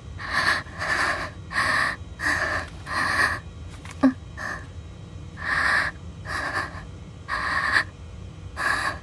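A girl breathing hard and fast inside a spacesuit helmet, one to two breaths a second, as she struggles for air. One short click about four seconds in.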